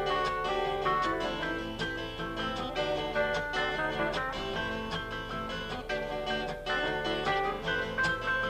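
Instrumental break of a small live band: a keyboard playing busy runs of notes over a strummed acoustic guitar. A steady low hum runs underneath, from the old videotape transfer.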